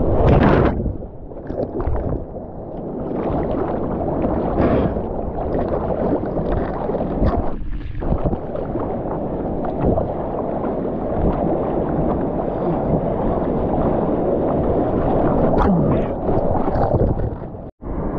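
Sea water rushing, sloshing and splashing right against an action camera's microphone as a surfer rides a breaking wave and then paddles through the water. The sound breaks off for a moment near the end.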